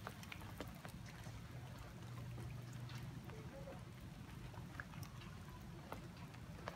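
Faint background: a low engine-like hum that swells a little in the middle, with scattered light ticks.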